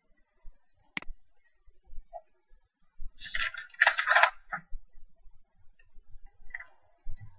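A single sharp click about a second in, then a short clatter of small hard knocks and rustles from about three to four and a half seconds in.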